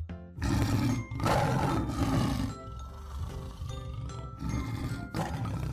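A tiger roaring over background music: two loud roars in the first two and a half seconds, then lower growls.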